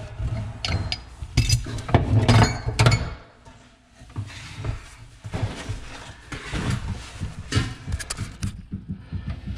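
Pipe wrench working a new threaded steel pipe nipple into the wall fitting: metal scraping and clinking for about three seconds, then lighter clinks and scraping as the wrench and tools are handled.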